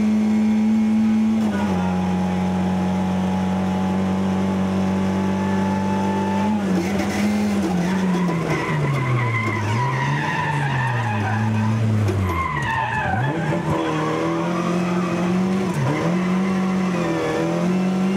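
Rally car engine heard from inside the cabin, held at high revs on a straight. From about six seconds in, its pitch swings down and up again and again as the car brakes, changes gear and accelerates through corners.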